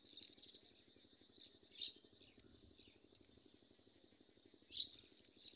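Near silence: a quiet outdoor background with a few faint, brief high chirps.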